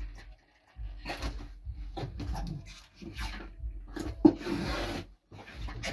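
Packing tape being worked onto a cardboard box: a series of short rubbing scrapes of hands and tape on cardboard, then a sharp crack and a hissing rip as a length of tape is pulled off the roll near the end.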